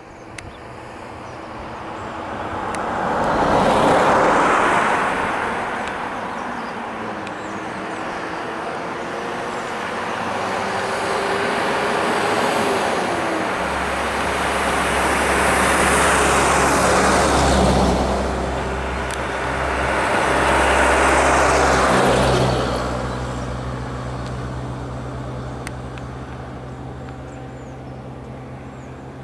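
Motor vehicles on a road: engine and tyre noise swells and fades as vehicles pass close by, about four seconds in and again in the middle and around twenty seconds. A steady low engine hum of an idling vehicle runs under it from about halfway through.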